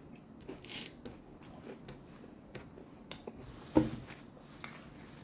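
Eating and handling fried food: chewing with small crisp clicks and rustles. One sharp knock, much louder than the rest, comes a little under four seconds in.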